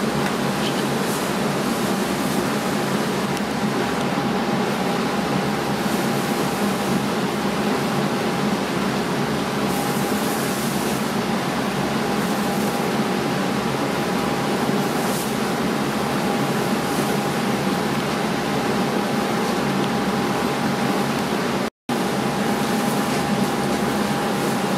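A fan or blower motor running steadily: an even rush of air noise with a faint steady whine. The sound cuts out for an instant near the end.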